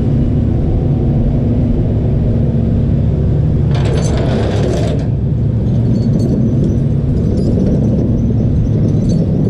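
Tow truck's engine running steadily with a low rumble, with a short burst of harsher noise about four seconds in.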